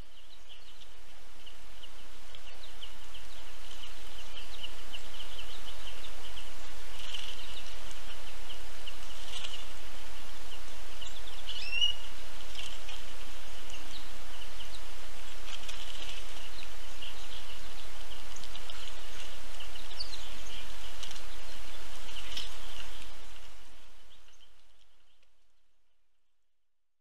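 Birds chirping and calling over a steady outdoor hiss. The sound fades in over the first few seconds and fades out near the end.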